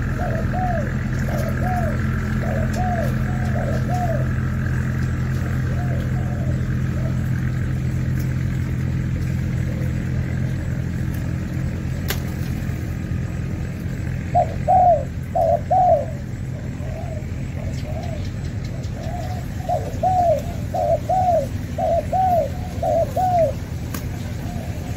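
Spotted doves cooing in quick runs of short arched notes: one bout at the start and a longer one from about halfway to near the end. A steady low hum runs underneath.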